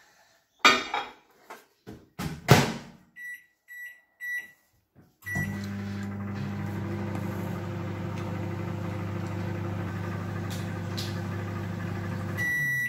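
Panasonic microwave oven being shut and started: a couple of knocks as the door closes, three keypad beeps as the time is set and a start beep, then the steady low hum of the oven running for about seven seconds, ending in a longer beep.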